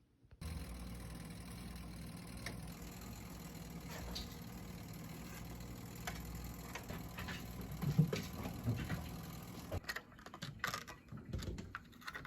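A steady low motor hum with an even pitch. It ends about ten seconds in and gives way to a run of irregular clicks and knocks.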